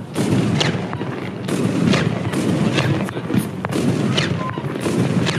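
Consumer fireworks going off: a steady run of shots and bangs, roughly one to two a second, over a continuous low rumble.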